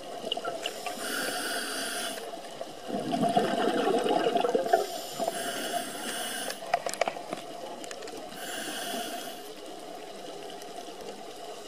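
Scuba diver breathing through a regulator underwater: three hissing inhalations with a faint whistle, and one loud burst of exhaled bubbles about three seconds in.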